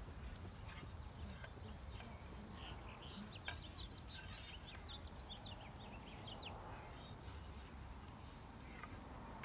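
Wooden practice swords knocking together now and then, the sharpest clack about three and a half seconds in, over a low wind rumble; a bird sings a quick run of chirps around the middle.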